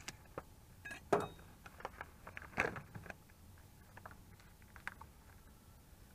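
Light kitchen handling noise: a few scattered clicks and knocks of a metal utensil against a plastic tray of raw chicken, the two loudest about a second in and a little past halfway through the first half.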